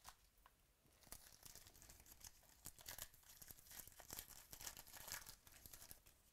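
Foil wrapper of a baseball card pack being torn open and crinkled by hand: a faint, irregular run of crackles and rustles that stops near the end as the card stack comes out.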